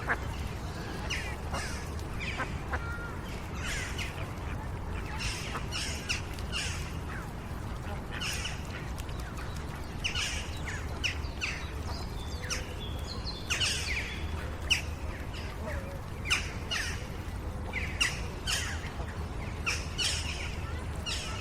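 Birds chirping and calling, many short calls one after another, over a steady low background rumble, with faint voices of children playing in the distance.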